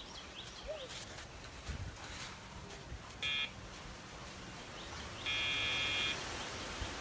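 Electronic dog training collar's sound box beeping in pager mode, a tone cue to the dog: a short beep about three seconds in, then a longer beep of nearly a second about five seconds in.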